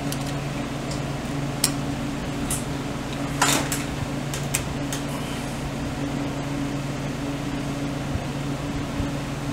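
Steady low electrical hum, with a few light clicks and a brief scrape about three and a half seconds in from handling the kickstart return spring and shaft of a BSA C15T gearbox.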